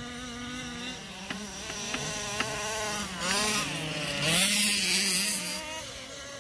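Small two-stroke engine of a 1/5-scale gas RC car buzzing, its pitch wavering, with a quick rev up and down about three seconds in. Three sharp clicks come in the first half, and a loud burst of rushing noise a little after the rev is the loudest part.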